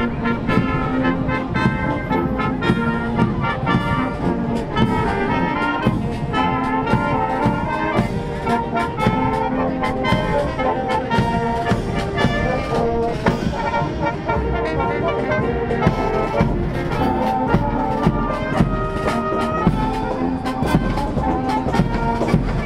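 Marching brass band playing a march: trumpets, sousaphone and other brass over snare drum and cymbals.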